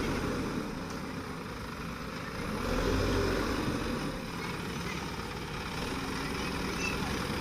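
Diesel engine of an Escorts Digmax II backhoe loader running steadily, growing louder for a moment about three seconds in.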